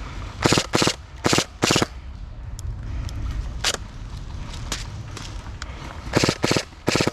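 Airsoft gun firing short rapid automatic bursts: four in the first two seconds, then three more near the end, with fainter single cracks between them.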